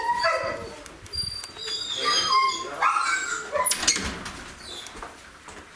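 A dog whining in several short, high-pitched calls. A sharp knock comes about three and a half seconds in.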